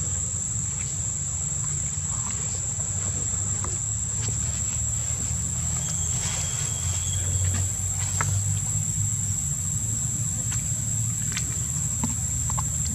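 A steady, high-pitched insect drone, with a low steady rumble beneath it and faint scattered clicks and rustles.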